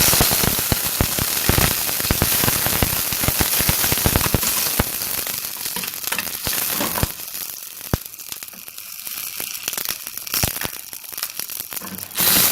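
Milk poured into a pan of hot garlic oil, sizzling and spattering with dense crackling pops that slowly die down, with a fresh loud burst of sizzle near the end.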